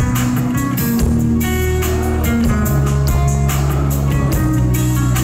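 Live band playing an instrumental stretch of a pop song without vocals: drums keeping a steady beat under bass and keyboard parts, loud and even.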